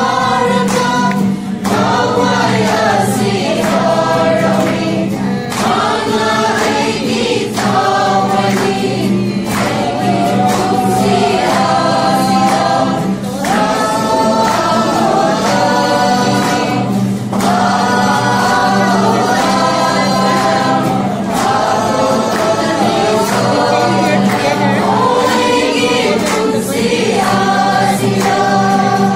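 A small group of young women and men singing a Christmas song together, accompanied by an acoustic guitar.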